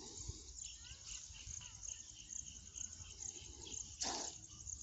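Field insects, crickets, chirping steadily in rapid high pulses, with a second, lower pulsing chirp through the first few seconds. A short, loud hiss-like burst of noise comes about four seconds in.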